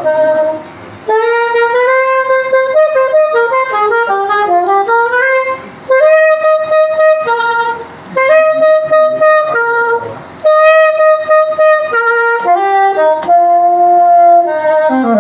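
Solo saxophone playing a slow hymn melody in held notes, in phrases separated by short breaths. Near the end a long held note slides down in pitch to close the phrase.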